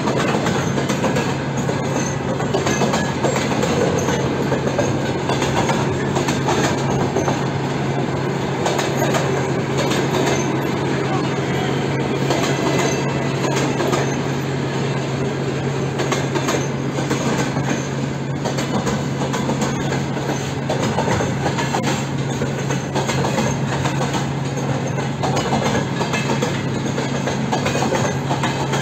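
Freight train of boxcars and flatcars rolling steadily past at close range: a continuous rumble with the wheels clicking and clattering over the rail joints.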